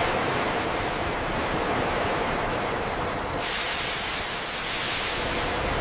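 Steady industrial machinery noise with a rushing hiss, turning brighter and hissier about three and a half seconds in.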